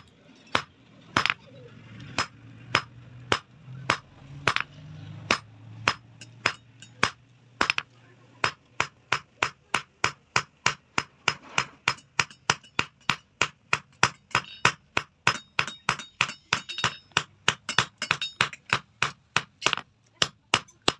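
Hand hammer striking a red-hot steel bar on an anvil, forging it out, with sharp ringing blows. The blows come at a steady pace at first and quicken to an even run of about three a second from about eight seconds in.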